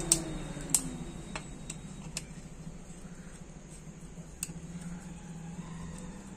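Sharp metal clicks and clinks of small engine parts and tools as a spring-loaded gear-shift part is hooked and pulled into place on a motorcycle engine, about six clicks spread over the first few seconds, the loudest two in the first second, over a steady low hum.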